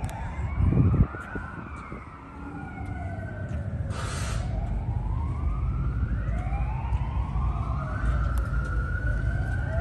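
Emergency-vehicle siren wailing, its pitch rising and falling slowly about once every four to five seconds, over a steady low rumble. A loud low thump comes about a second in, and a brief hiss about four seconds in.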